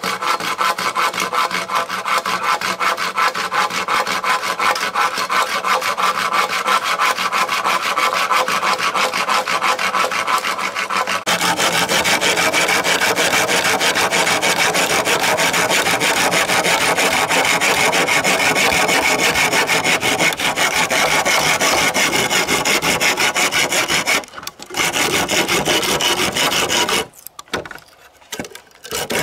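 Hand saw cutting through green bamboo poles with rapid, even back-and-forth strokes. The sawing breaks off briefly, starts again, and stops shortly before the end.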